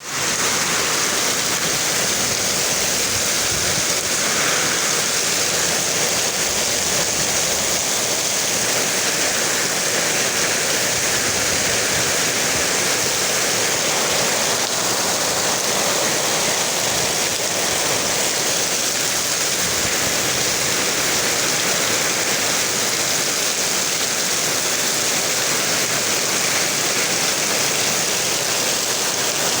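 Heavy rain falling, a loud, steady hiss.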